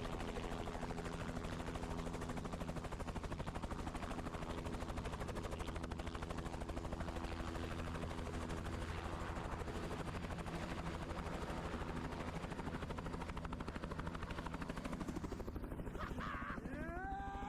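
Helicopter running with its rotor turning, heard from inside the doorless cabin: a rapid, steady chopping over a constant engine hum. Near the end a rising whine climbs in pitch as the engine speeds up.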